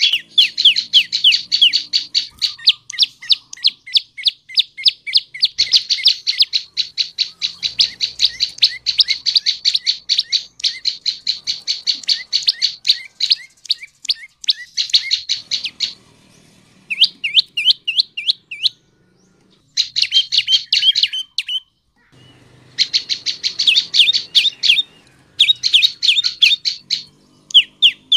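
Prenjak lumut songbird singing: rapid, high-pitched chirps repeated several times a second in long runs, broken by short pauses in the second half.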